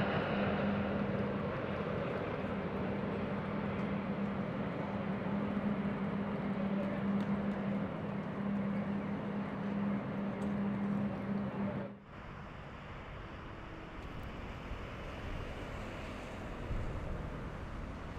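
Jet airliner engines running: a steady hum under a broad rush that slowly fades. About twelve seconds in it cuts off abruptly, and a quieter steady rushing noise follows.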